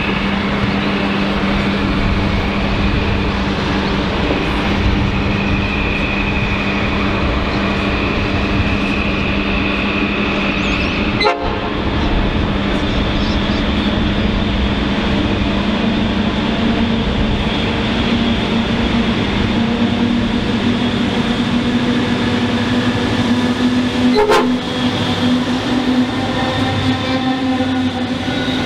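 Freight train hauled by twin VL-class diesel locomotives passing at speed, the engines running with a steady low hum and the loaded wagons rolling and rattling along the track. There is a sharp knock about eleven seconds in.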